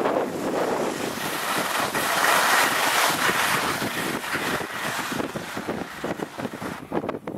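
Wind rushing over the microphone of a camera carried by a skier moving downhill, mixed with the hiss of skis sliding on snow. The rushing is loudest two to three seconds in and turns choppy and gusty near the end.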